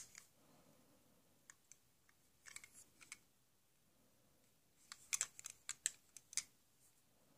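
Faint scattered clicks and taps of small objects being handled, a few in the first half and then a quick run of about a dozen in the second half.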